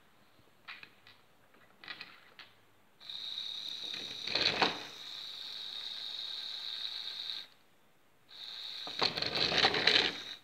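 Small electric motor of a 1962 Presu Wartburg 311 battery-operated toy car running its wheels through the gears with a steady high whine, starting about three seconds in and stopping after about four seconds. It runs again near the end, louder and rattlier. A few light clicks come before the first run.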